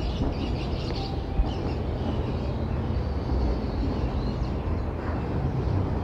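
Steady low rumble of city traffic, with faint high chirps here and there.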